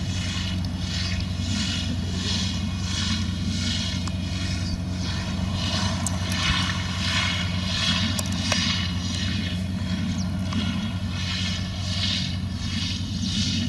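Tractor pulling a slurry tanker while spreading slurry through a splash plate: a steady low engine drone, with a hiss that swells and fades about one and a half times a second.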